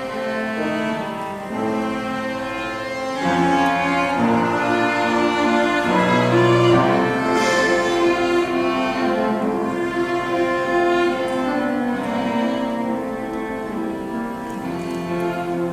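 Piano trio of piano, violin and cello playing a passage of held, sustained notes, with the cello's low line clearly present; the playing grows louder about three seconds in.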